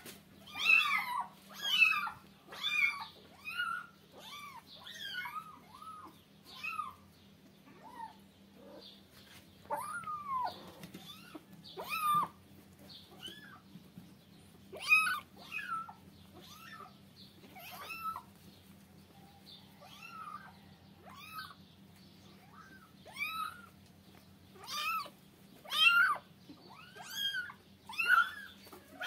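Young kittens mewing over and over, short high cries that rise and fall, about one or two a second with a brief lull midway: distress mews from wet kittens being towel-dried after a bath. A faint steady hum lies underneath.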